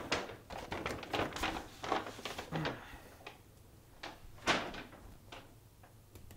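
Knocks and clatter of things being handled and set down on a kitchen counter. One sharper, louder knock comes about four and a half seconds in.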